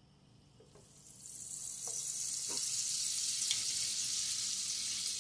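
Butter sizzling as it melts in hot olive oil in a nonstick skillet. The sizzle starts about a second in, when the butter hits the oil, swells over the next second, then holds as a steady hiss.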